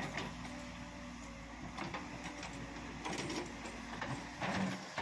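Backhoe loader's diesel engine running steadily under hydraulic load while the rear bucket digs and lifts soil, with several scrapes and clanks of the bucket and arm. The loudest comes about four and a half seconds in.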